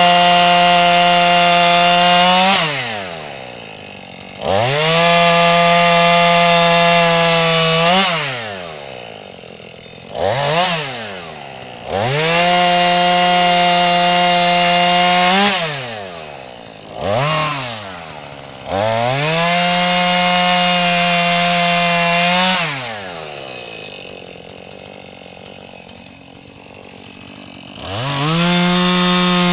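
Chainsaw bucking small limbs into firewood blocks: the engine revs up to full throttle for a cut of a few seconds, then drops back to idle, four times over. There are two brief throttle blips in between, and a longer idle before it revs up again near the end.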